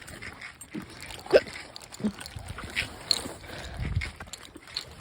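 A woman hiccuping: one loud, sharp hiccup about a second and a half in, followed by a few fainter short catches.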